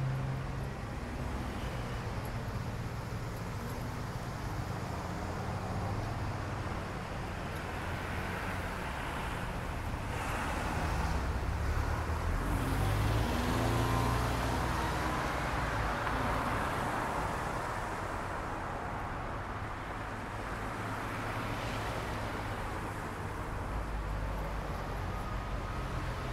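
Road traffic going by: steady noise of cars on the road, with one vehicle passing closest and loudest about halfway through.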